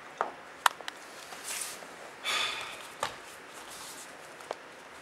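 Martial artists in cotton gis moving on training mats: a few short sharp slaps and knocks, the loudest about two thirds of a second in, and two brief rushes of rustling noise around the middle.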